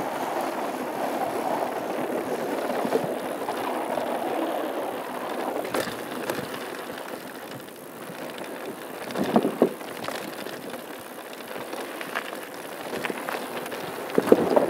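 Mountain bike descending a trail: tyres rolling over a wooden boardwalk, then quieter on gravel, with the bike rattling and a few sharp clacks over bumps, the loudest cluster about nine and a half seconds in and another near the end.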